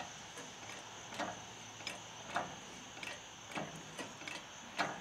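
Light metallic clicks and knocks at an uneven pace, about one or two a second, from the engine hoist and its lifting rig as the pickup cab is raised off the frame.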